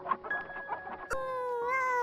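A domestic cat gives one long drawn-out meow starting about a second in, its pitch rising a little and then falling at the end, over faint background music.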